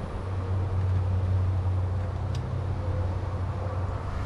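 Low steady hum of a running motor vehicle, strongest in the first few seconds, with one faint click about two and a half seconds in.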